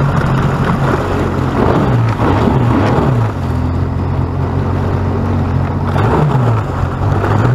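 Sea-Doo personal watercraft engine running under way, its pitch sliding down and back up a few times as the throttle changes.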